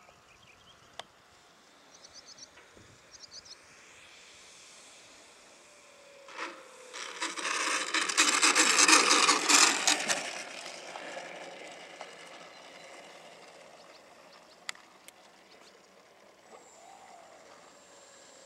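A loud, rough rushing-scraping noise swells about seven seconds in and fades after some three seconds, typical of a small electric RC model plane touching down and rolling on an asphalt runway. The rest is quiet, with a few faint chirps early on.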